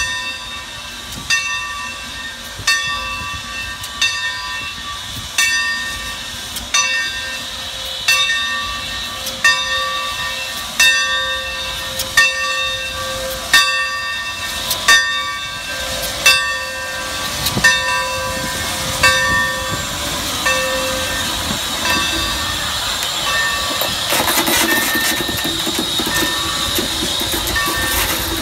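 The bell of Santa Fe 3751, a 4-8-4 steam locomotive, rings steadily, about one stroke every second and a half, as the engine rolls slowly past. The strokes fade out near the end and give way to a steady hiss of steam.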